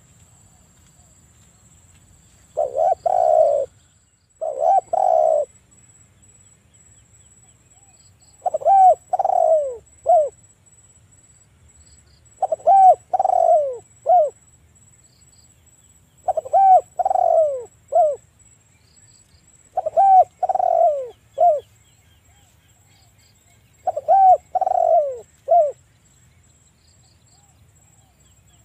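Spotted dove cooing repeatedly: a phrase of two or three hoarse, low coos ending in a short clipped note, repeated about every four seconds, seven times.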